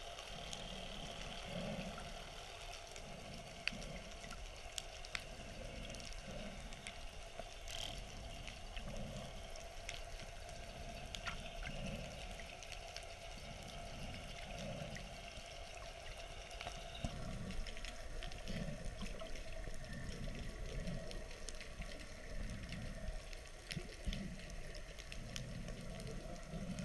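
Muffled sea water heard through a submerged camera: low sloshing pulses about once a second, with scattered sharp clicks and crackles.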